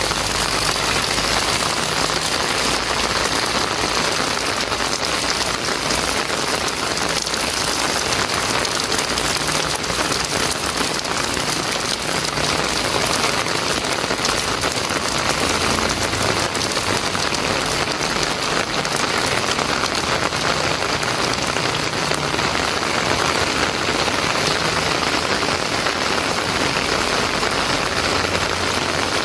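Heavy rain pouring steadily onto a wet paved lane and roofs, an even hiss that holds without let-up.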